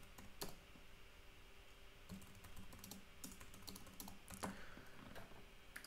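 Faint, irregular keystrokes on a computer keyboard: someone typing a short line of text.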